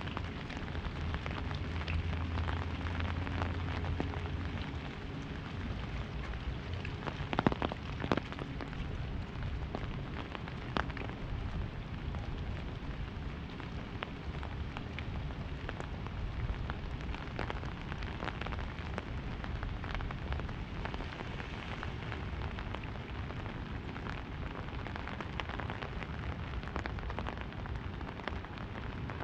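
Rain pattering on an umbrella overhead: a dense, steady patter of drops hitting the canopy, with a couple of louder taps about seven to eight seconds in. A low hum sits under it for the first few seconds and then fades.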